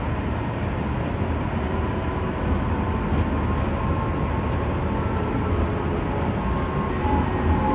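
CAF Urbos 1 tram running along its track, heard from inside the cabin: a steady rumble of wheels and running gear with a faint whine coming and going.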